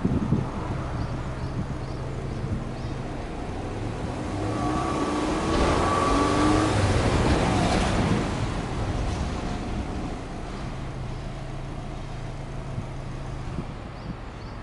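Subaru Legacy Touring Wagon 2.0GT's turbocharged EJ20 flat-four idling through its twin exhaust tips. About four seconds in it is revved up, held for a few seconds, and eased back down to a steady idle by about ten seconds.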